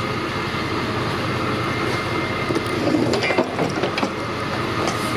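Steady vehicle and engine noise of a busy airport drop-off curb, with a few short clicks and knocks about three seconds in as bags are handled in a pickup truck's bed.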